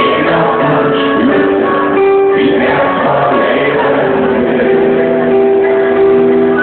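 Live band music with a singer holding long, drawn-out notes, recorded loud through a phone's microphone with the top end cut off.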